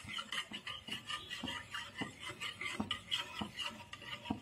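A spatula stirring thin yogurt curry in a metal pan: quiet, irregular scrapes and light taps against the pan.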